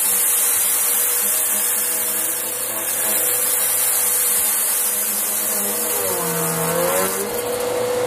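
Bissell CleanView upright vacuum cleaner running during a single up-and-back pass, a steady motor whine over a strong rush of air. Around six to seven seconds in, the whine wavers and dips in pitch, then steadies again.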